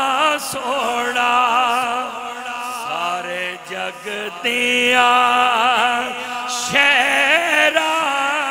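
A man's voice singing a naat line in long, held, melismatic notes with a wavering vibrato, amplified through a microphone and loudspeakers.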